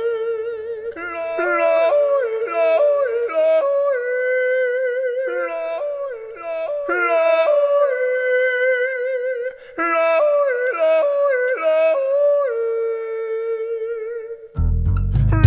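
A solo voice yodeling: quick, clean flips back and forth between a lower chest-voice note and a higher falsetto note, with some longer held notes wavering in vibrato. Near the end, instrumental music with a heavy bass comes in.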